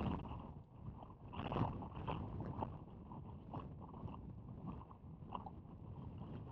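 Pickup truck rolling slowly over loose gravel, its tyres crunching and crackling on the stones, loudest about a second and a half in, over a low rumble of wind and engine.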